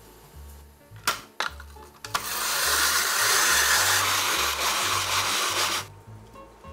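Raw potato being shredded in a hand-cranked rotary drum grater: a steady scraping noise that starts suddenly about two seconds in, lasts about four seconds and stops abruptly. Two sharp clicks come just before it.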